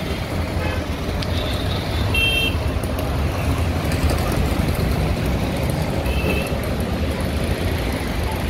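Steady city street traffic: motorbikes, an auto-rickshaw and cars passing close by, with a continuous low rumble. Short high tones sound about two seconds in and again about six seconds in.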